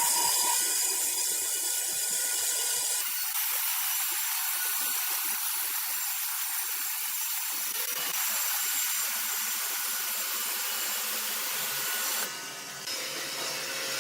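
Sawmill saw cutting through wood: a steady, high hissing whine that changes abruptly about three seconds in and again near the end.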